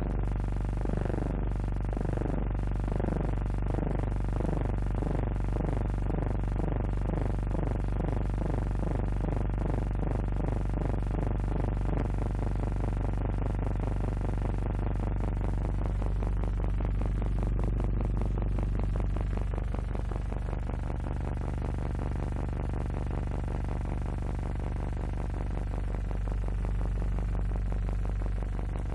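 Helicopter rotor and engine sound spinning up: a steady low hum under a beating whoosh that speeds up over the first fifteen seconds or so, then runs fast and even.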